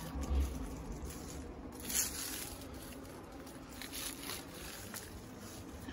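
Faint rustling and crunching of someone moving on foot through dry scrub and rocky ground, with a soft low thump near the start and a brief louder rustle about two seconds in.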